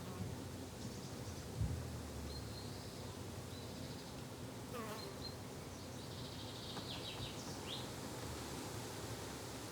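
A flying insect buzzing steadily in a garden, with a few short high bird chirps and a single dull thump about a second and a half in.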